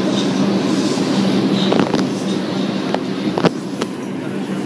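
New York subway platform ambience: a steady hum and rumble from a train standing in the station, with a few sharp clicks about two and three and a half seconds in.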